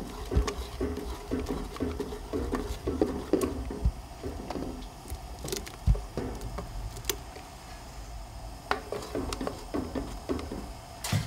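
A bundle of wooden stirring sticks stirring thickening cornmeal batter in a boiling aluminum stockpot: wet sloshing strokes in a quick, uneven rhythm, with scattered clicks of the sticks against the pot. The strokes thin out for a few seconds around the middle, then pick up again.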